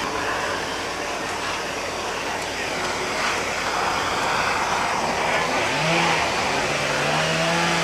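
Handheld gas torch burning with a steady hissing roar as its flame scorches the surface of a carved wood sculpture for finishing. A low steady hum joins in about halfway through.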